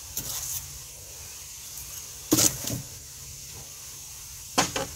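Small metal parts clicking and knocking against a workbench as tie rod hardware is handled: a few sharp clicks, the loudest about two and a half seconds in and a quick cluster near the end.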